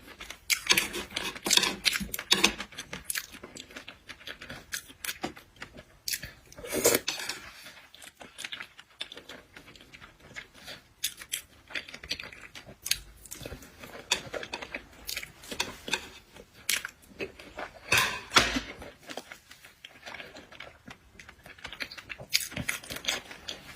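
A person eating seafood close to the microphone: chewing with irregular sharp crunches, cracks and tearing sounds.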